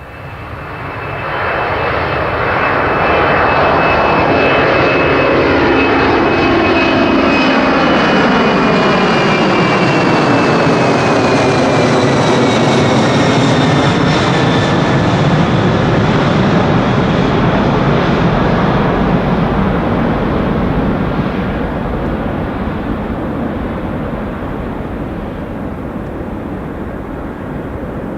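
Boeing 747-400 jumbo jet at takeoff thrust passing by, its four turbofan engines running. The sound swells over the first couple of seconds and holds loud and steady, with a high whine that glides down in pitch as the aircraft passes. It then fades slowly over the last several seconds.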